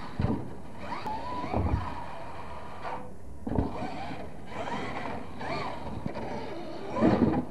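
Radio-controlled monster truck's motor whining up and down in pitch with the throttle, with heavy thumps as the truck lands, one about a third of a second in and another about three and a half seconds in.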